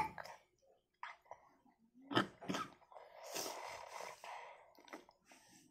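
A toddler drinking soup straight from a bowl held to his mouth: two short breaths or gulps about two seconds in, then a soft slurp lasting about a second.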